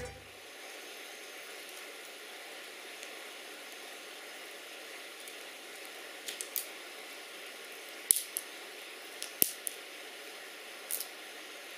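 Fire of dry twigs and branches burning with a steady soft hiss. From about halfway on there are scattered sharp crackles and pops, a few close together.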